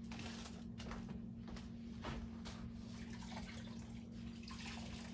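Water from a kitchen tap running and splashing irregularly into a sink.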